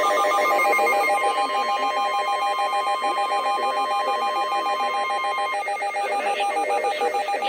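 Weather radio alert tones: a steady, shrill single tone, the NOAA Weather Radio warning alarm, cuts off about five and a half seconds in. Under it, a rapidly pulsing, trilling electronic tone keeps going.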